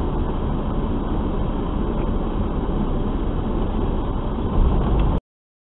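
Steady low rumble of a semi truck's cab and engine picked up by the dashcam microphone. It swells slightly, then cuts off abruptly about five seconds in.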